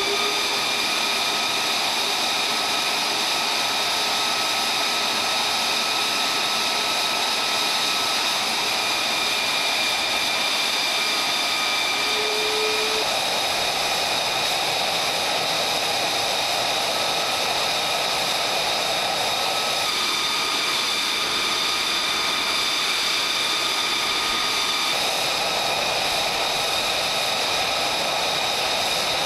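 F-35A Lightning II fighter running on the ground: a loud, steady jet whine made of several high tones over a rushing noise. The rushing part dips for about five seconds two-thirds of the way in.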